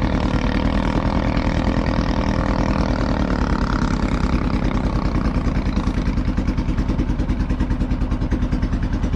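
Small wooden boat's engine running steadily as the boat cruises, with a fast, even beat.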